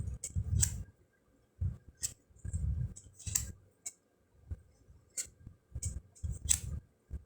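A deck of cardboard fortune cards being flipped through by hand. Irregular soft knocks and sharp little clicks come as cards are slid, turned and laid down, about one or two a second.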